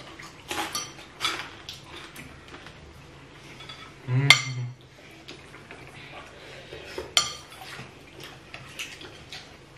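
Cutlery and chopsticks clinking and scraping against ceramic bowls as several people eat noodle soup: scattered light clinks, with one louder ringing clink about four seconds in.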